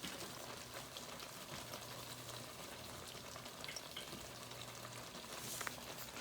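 Alfredo cream sauce simmering in a pan: a steady, faint sizzle with scattered small pops and a few light clicks near the end.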